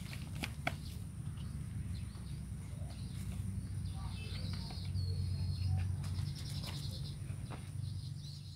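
Hand-weeding of potted plants: scattered crackles and rustles as grass is gripped and pulled from the soil, over a steady low rumble on the microphone. Birds chirp about halfway through.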